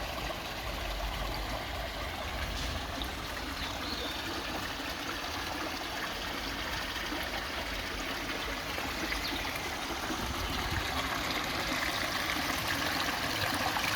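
Garden koi pond waterfall running, water splashing and trickling steadily into the pond.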